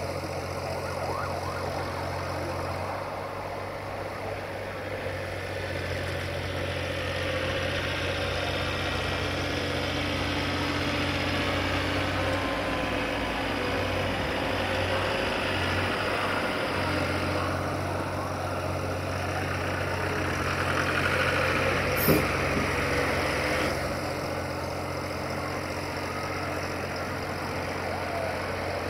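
Caterpillar 302.5C mini excavator's diesel engine running steadily while the machine digs, with a whine from the hydraulics that rises and falls as the boom and bucket move. A single sharp metallic knock about three quarters of the way through.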